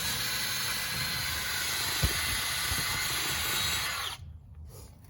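Aerosol brake cleaner hissing in a steady spray while the new brake rotor is cleaned, cutting off suddenly about four seconds in. A single knock is heard about two seconds in.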